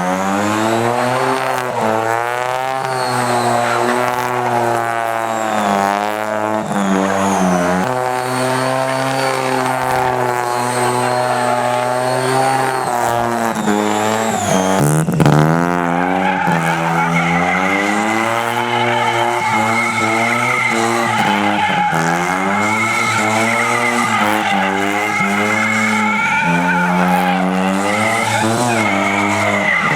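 Single-rotor Mazda rotary engine in a lawn mower, revving up and down over and over as it is driven hard. A high, steady squeal joins in from about halfway.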